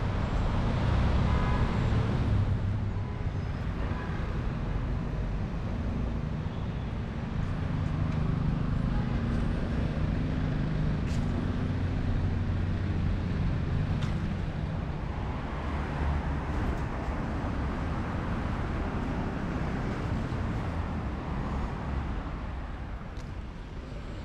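Motor traffic on a city street: cars and heavier vehicles running and passing, with a steady low engine hum that is strongest in the middle.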